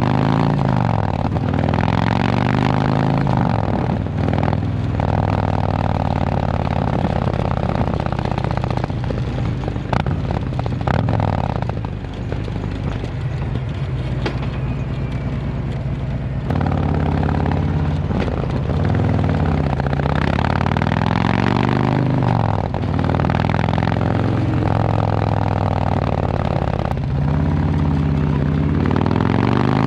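Harley-Davidson touring motorcycle's Milwaukee-Eight V-twin running through an S&S Sidewinder 2-into-1 exhaust, with a low-toned exhaust note. The engine pitch climbs and falls several times.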